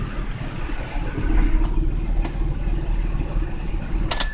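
Swapped-in 3.0 L V6 from a 2006 Ford Fusion idling steadily at about 1000 rpm in a 2004 Mazda6, heard from inside the cabin. Near the end there is a sharp click and the engine stops.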